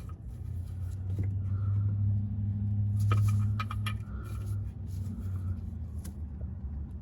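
A few short metallic clicks from a 17 mm wrench tightening the oil drain plug, over a low hum that swells and then fades.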